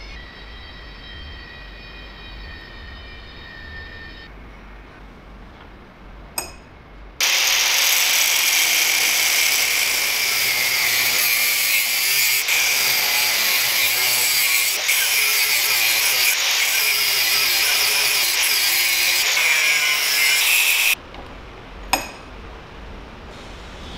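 A power tool running loud and steady for about fourteen seconds, a hissy noise mostly high in pitch, starting suddenly about seven seconds in and cutting off suddenly. Before it there are faint ringing tones and a click, and another click comes just after it stops.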